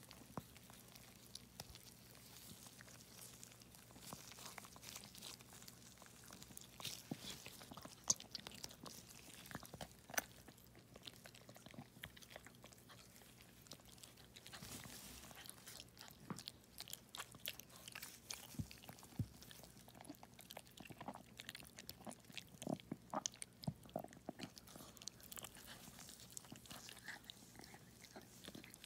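Faint, irregular wet clicks and smacks of a newborn puppy's slippery birth sac being handled and peeled with gloved fingers, over a faint steady low hum.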